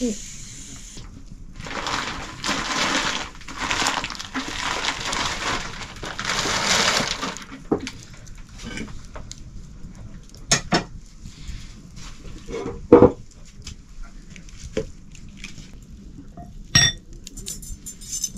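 Cooking pots and utensils clinking and knocking. For the first several seconds there is a pulsing, rushing hiss, like water or liquid, before it gives way to separate clinks and knocks.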